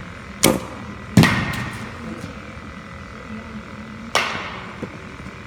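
Three sharp impacts of baseball batting practice, the loudest about a second in, each trailing an echo off the large indoor hall.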